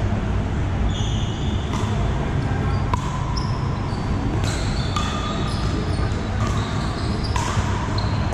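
Pickleball rally in a large indoor hall: several sharp pops of paddles striking the plastic ball, from this court and neighbouring ones, among short sneaker squeaks on the court floor. A steady low rumble of the hall runs underneath.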